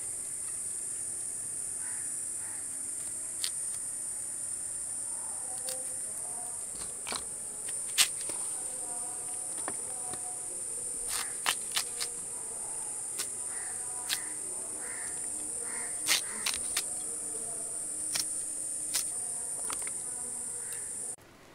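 Steady high buzz of insects that cuts off abruptly near the end. Scattered sharp clicks and taps run over it as a knife scrapes the dark skin off an elephant foot yam.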